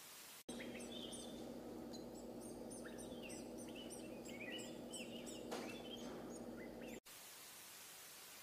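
Newly hatched palila chicks cheeping: a quick series of short, high calls, each sliding down in pitch, over a steady low hum. The sound starts about half a second in and cuts off abruptly about seven seconds in, leaving faint hiss.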